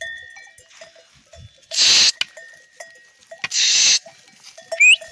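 Small bells on a grazing flock of goats and sheep clinking on and off as the animals move. Two loud short hissing bursts come about two and three and a half seconds in, and a brief rising whistle near the end.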